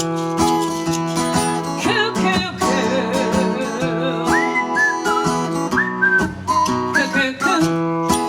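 Instrumental break of a country-style song: strummed acoustic guitar with short gliding whistled notes over it.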